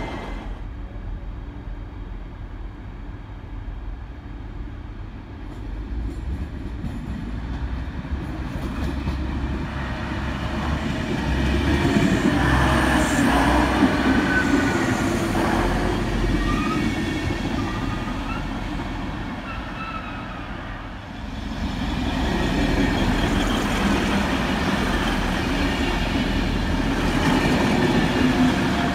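DB Class 612 diesel multiple unit pulling out under power, its diesel engine sound swelling to a peak in the middle with a few brief gliding whines. About two-thirds of the way through the sound changes abruptly to another Class 612 passing at speed, a steady running rumble.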